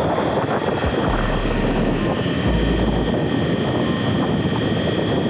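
Electric RC car driving fast, heard from its own mounted camera: a steady high motor whine over dense wind and tyre noise on the microphone.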